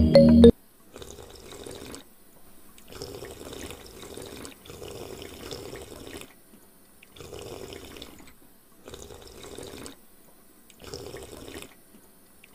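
Loud music cuts off about half a second in. Quiet water sounds from a small bowl of water follow, in stretches of one to two seconds broken by abrupt short silences.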